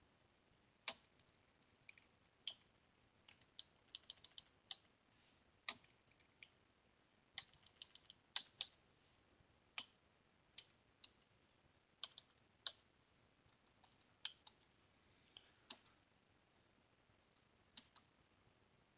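Faint keystrokes on a computer keyboard at irregular intervals, some single taps and some short quick runs, as a line is typed into a text file.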